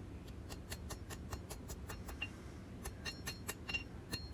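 Rapid, light hammer taps on a hot steel seax blade on the anvil, about five a second, some leaving a short metallic ring: planishing out the hammer marks.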